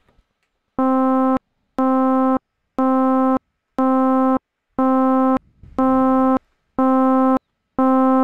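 Logic Pro's ES1 software synthesizer playing the same note C over and over, eight notes about one a second. Each note is held at a static loudness with no decay and cuts off sharply, because the amplifier envelope is set to Gate R, so only attack and release shape it.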